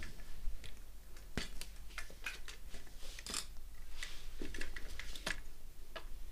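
Baolida 20-inch aluminium folding bike being folded by hand: irregular clicks, knocks and light rattles of its frame, hinges and clamp parts as they are moved.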